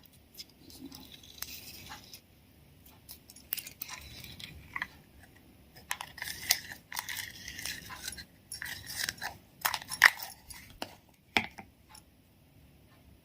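Crystal (clear) slime being squeezed and stretched by hand, giving irregular crackles, pops and sharp clicks. The loudest click comes about ten seconds in.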